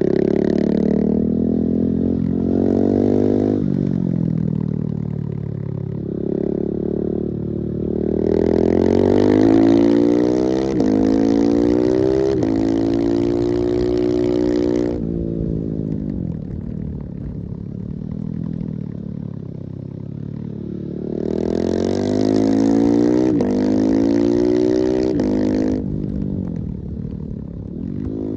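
Husqvarna 701's single-cylinder four-stroke engine pulling hard at full throttle, its pitch climbing and dropping sharply at each upshift, in two runs through the gears with an easing off between them.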